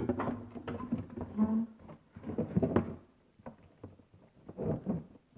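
The plastic case of a tennis ball machine being lowered and handled: scattered light knocks and rubbing, with a brief squeak about a second and a half in.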